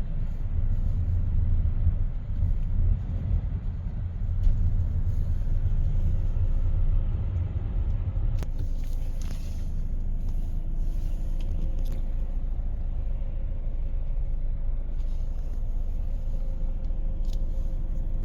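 Low, steady rumble of a car's engine and tyres heard from inside the cabin while driving, with a brief click about eight and a half seconds in.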